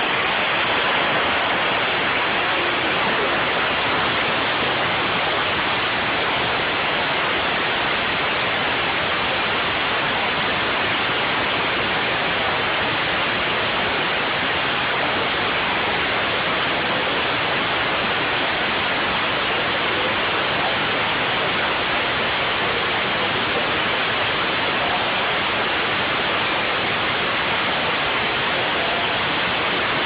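Steady, unchanging hiss of compressed air bleeding out through the adjustable exhaust of a dual-coil four-way solenoid valve, as a Kinetrol Model 20 double-acting pneumatic vane actuator slowly drives a butterfly valve closed. The exhaust is throttled to stretch the stroke to about 60 seconds.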